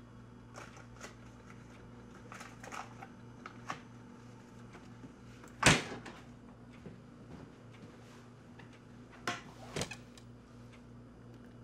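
Refrigerator door swung shut with a single loud thump about halfway through, after a few faint clinks and rustles of things being moved inside it. A steady low hum runs underneath, and two sharper knocks come near the end.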